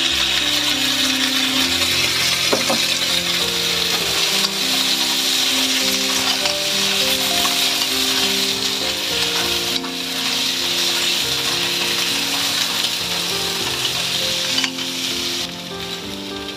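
Clams, shallots and garlic sizzling hard in a hot stainless steel pan as vodka is poured in and stirred with a spatula; the sizzle eases a little near the end. A simple background tune plays along.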